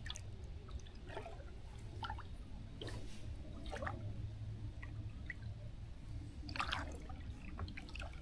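Wooden single-blade paddle dipping and pulling through calm water, with drips and small splashes roughly once a second; the largest splash comes near the end.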